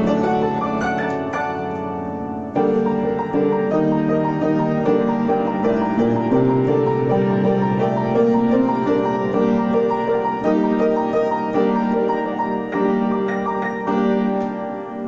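Solo piano music, a piece played with sustained notes and chords, with a loud new chord struck about two and a half seconds in.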